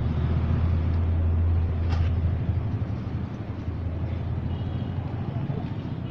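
Low steady engine rumble that eases off after about two and a half seconds, over general street noise, with a single click about two seconds in.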